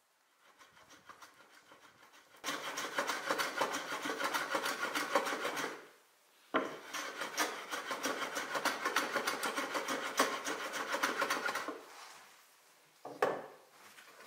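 Hand abrading of a wooden box frame, a block rubbed quickly back and forth along the wood, in two long spells of rough scraping strokes of about four and five seconds. A short knock follows near the end.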